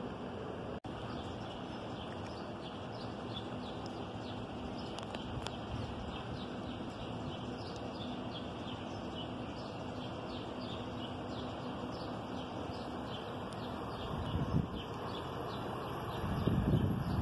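Small birds chirping over a steady hum of outdoor background noise, with short high chirps coming several times a second. Near the end come a few louder, low rumbling bursts.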